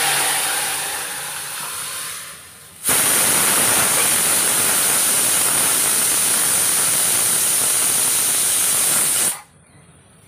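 Dal poured into hot tempering oil (baghaar), hissing and sizzling loudly and fading over the first couple of seconds. About three seconds in a loud, steady sizzling hiss starts suddenly and cuts off abruptly near the end.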